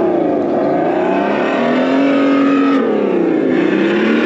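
Loud engine-like revving sound whose pitch dips, climbs and holds, then dips and climbs again near the end.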